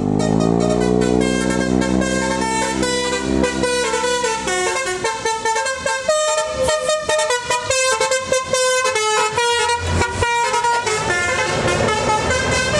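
Tour bus's 'telolet basuri' multi-tone horn playing a tune of quick, stepping notes. Under it the bus engine runs with slowly rising pitch, fading out about four seconds in.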